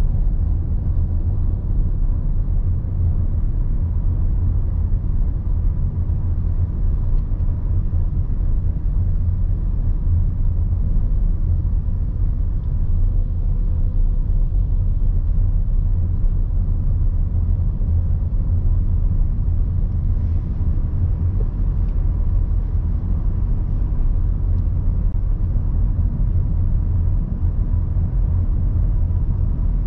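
Steady low rumble of a moving vehicle, unchanging throughout, with a faint thin whine above it.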